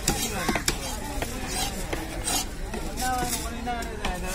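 Large knife cutting through a big fish on a wooden chopping block: scraping slices and several short knocks of the blade against the wood.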